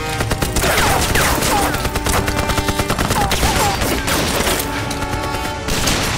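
Dense, rapid gunfire from several guns, shot after shot in quick succession throughout, as in a film gunfight.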